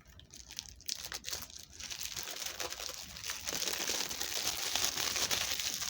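Plastic shrink-wrap being torn and peeled off a DVD case, crinkling. A few separate crackles at first, then dense continuous crinkling from about two seconds in.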